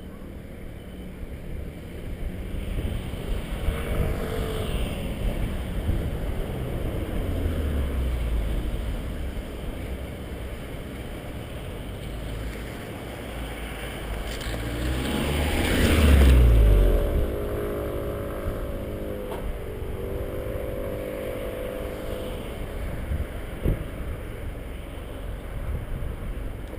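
VW Golf 1.4 TSI turbocharged four-cylinder running through a Jhen Feng aftermarket exhaust. Its note swells to its loudest about sixteen seconds in, the pitch rising and then falling, and settles to a steadier drone afterwards.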